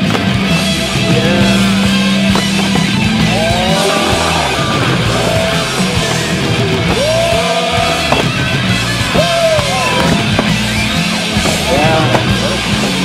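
Background music with a singing voice over a steady bass line.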